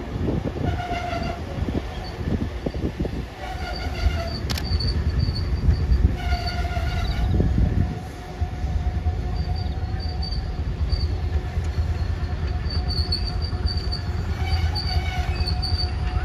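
Passenger carriage running on the rails with a steady low rumble. The wheels clatter over rail joints and points in the first few seconds, with one sharp crack a little later. High squealing tones come and go throughout.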